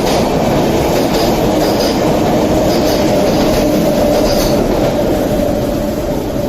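Express train running past close by at speed: a steady loud rumble of wheels on rail, with clickety-clack and a few brief faint high wheel squeals. A steady hum comes in around the middle.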